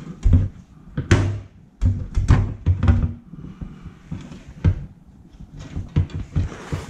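Irregular knocks and clunks of a fuel pump hanger assembly being handled, turned and set against a workbench top, with a short scraping rub near the end.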